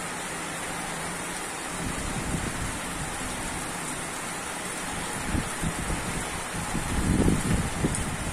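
Steady heavy rain falling during an electrical storm, with a low rumble of thunder building up over the last few seconds.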